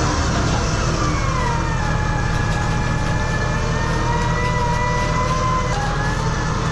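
Roll-off truck's engine running under load while its hoist pulls a steel dumpster up onto the tilted bed. A thin whine rides over the engine: it slides down about a second in, slowly rises, then drops again near the end.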